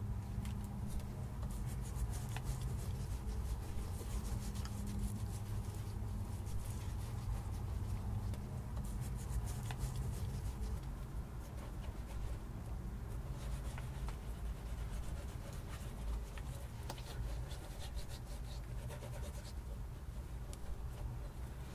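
Hands rubbing and smoothing the surface of a clay pot, giving soft, irregular scraping and brushing sounds over a steady low rumble.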